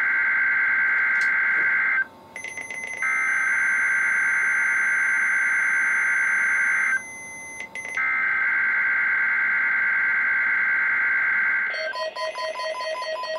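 NOAA Weather Radio SAME digital header tones for a Required Weekly Test: a harsh two-tone data screech sent as three bursts of about four seconds, each separated by a one-second gap. Near the end a jumble of short electronic beeps at several pitches starts.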